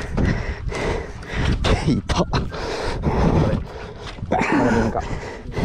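Heavy panting and strained grunts of an angler cranking a big conventional reel against a heavy fish, the exertion of a standing fight with a grouper of over 20 kg.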